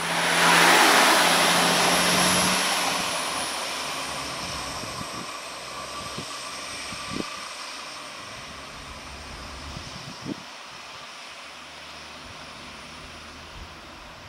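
Regional multiple-unit passenger train passing close and pulling away: loudest in the first couple of seconds, then steadily fading as it recedes, with a high whine that sinks slightly in pitch. Two short clicks come through about seven and ten seconds in.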